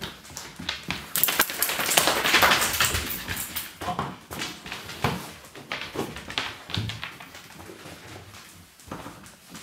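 Walking boots being pulled off in an oak boot pull: a stretch of rubbing and scraping as a heel works free of the wood, then scattered soft knocks and taps as the boots come down on the carpet.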